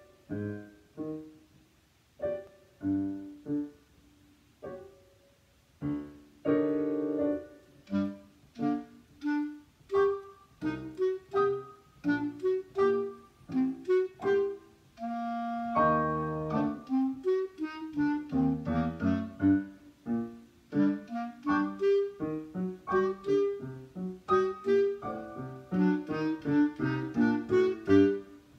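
Clarinet and piano playing a duet, mostly short, detached notes with a few held ones.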